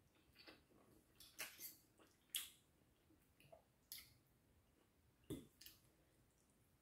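A metal spoon and fork cut into a bakso meatball and scrape a ceramic bowl. There are about half a dozen short clinks and scrapes, the loudest about two and a half seconds in, with soft eating sounds between them.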